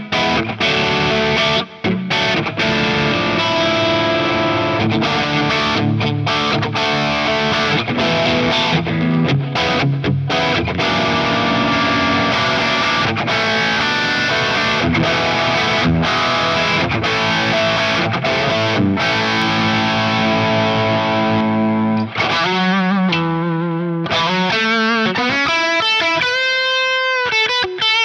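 SLX Hawk Classic Lite 22 HSS electric guitar played through distortion, in dense, continuous riffing. About 22 seconds in it thins out to single held notes that waver in pitch.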